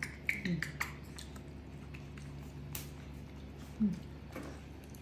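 A young macaque chewing corn on the cob: scattered wet squishing and crunching clicks, with two short low sounds falling in pitch, about half a second in and near four seconds.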